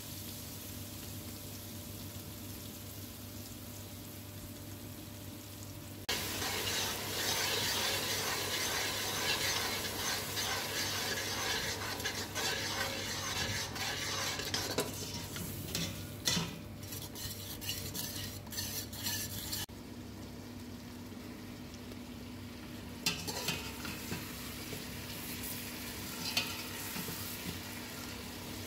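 Food sizzling as it fries in a stainless steel pot, stirred with a metal slotted spoon that scrapes and clinks against the pot. The sizzle is louder for about eight seconds in the middle, and sharper spoon clicks follow later.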